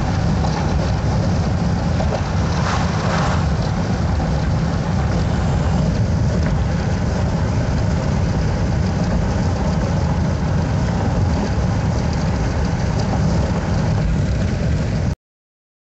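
Road noise inside a moving car's cabin: a steady low rumble of tyres and engine with a hiss of wind over it, cutting off abruptly near the end.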